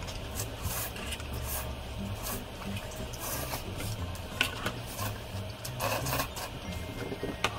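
Slurping and chewing of jjajang rabokki noodles, in irregular noisy bursts, with a couple of sharp clicks.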